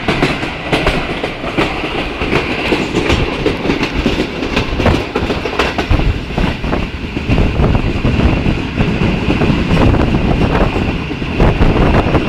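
Passenger train running at speed, heard from inside a carriage at the window: a steady rumbling rush with a repeated clatter of wheels over the rail joints.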